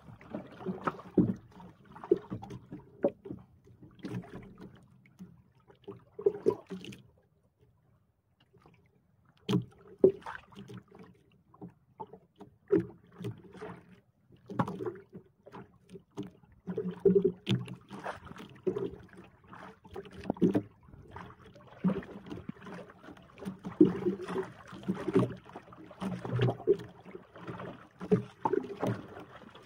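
Water slapping and knocking irregularly against the hull of a small wooden outrigger boat, in uneven bursts with a brief near-quiet lull about eight seconds in.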